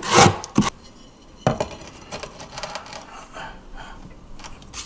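Trowel scraping leftover thinset mortar off the wall, a loud rough scrape at the start, followed by a sharp click and scattered light knocks and clicks as ceramic tiles are handled and set.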